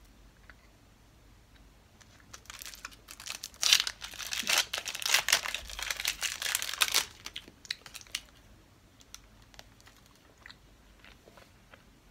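Candy wrapper crinkled and torn open, loudest from about four to seven seconds in, then faint scattered clicks of a soft candy being chewed.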